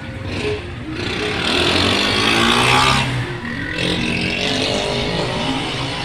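A motor vehicle's engine running, growing louder to a peak about halfway through and then easing off, like a vehicle passing by.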